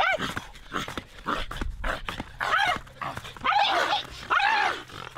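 Human performers vocally imitating animal cries: a string of short yelping, dog-like calls, each rising and falling in pitch.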